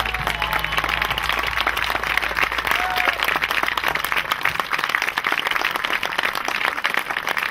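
Audience applauding at the end of a song, a dense patter of many hands clapping. A low note held by the band underneath stops about four seconds in.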